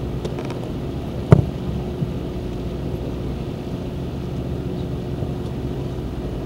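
Steady low rumble and hum, with a single sharp knock about a second in.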